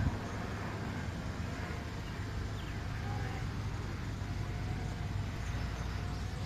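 Small drone's motors and propellers humming steadily, picked up by its own onboard camera, with a rush of air noise.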